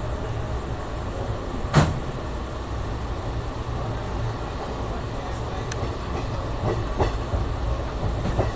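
ICF passenger coaches running over the track, heard from on board: a steady low rumble of wheels on rail. A sharp wheel clack comes about two seconds in, and a few lighter clacks follow near the end.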